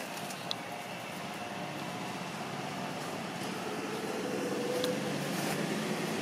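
Steady background hiss and hum, with one short click about half a second in.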